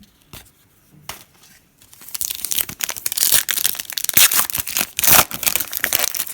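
A trading-card pack's foil wrapper being torn open and crinkled by hand: a few light clicks, then from about two seconds in a loud, continuous crackling and tearing.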